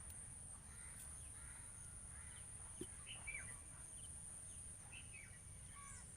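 Faint outdoor ambience: birds giving short, falling chirps every second or so over a steady high-pitched whine and a low background rumble.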